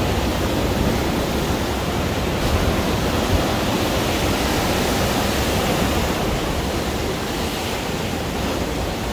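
Steady rushing noise of ocean surf, with wind buffeting the microphone in a low, fluttering rumble.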